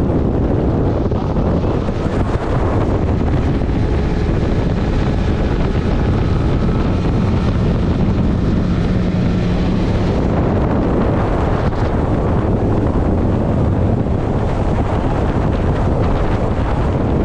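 Strong wind buffeting the microphone: a loud, steady rumble.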